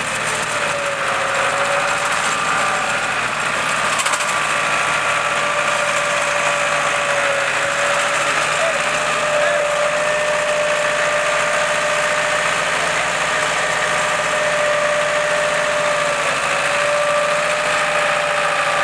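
Farm tractor engine running steadily while driving a three-point-hitch post-hole auger, with a steady whine over the engine noise.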